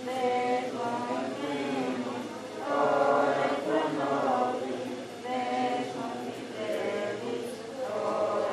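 A group of voices singing a slow devotional chant together, holding long notes in phrases of a second or two.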